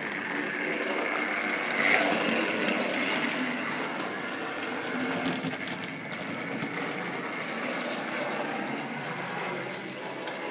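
Hornby model locomotive running on the track: its small electric motor whirring steadily, with the wheels and mechanism rattling along the rails. The worn-out motor is on its way to overheating and smoking.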